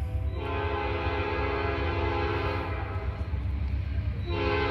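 Locomotive horn on an approaching train: one long blast of about two and a half seconds, then a second blast starting near the end, over a steady low rumble.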